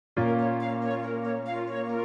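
Background music of held, sustained notes, starting a moment in after a brief silence.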